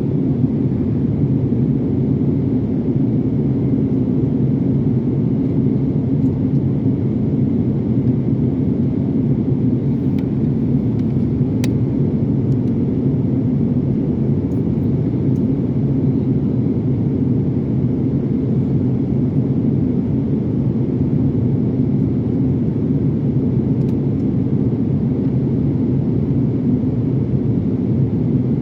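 Steady, loud rumble of an airliner cabin on the approach to landing: engine and airflow noise heard from inside the cabin, with a few faint clicks.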